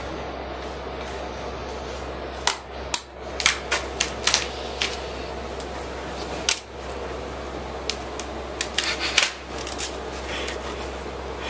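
Duct tape being pulled off the roll in quick crackling rips, in two spells of several sharp tears each, over a steady low hum.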